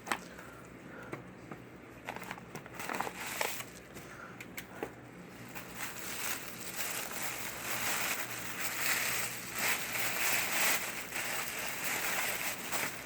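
Packaging crinkling and crackling as a mail package is opened by hand: scattered clicks at first, then denser and louder crinkling through the second half.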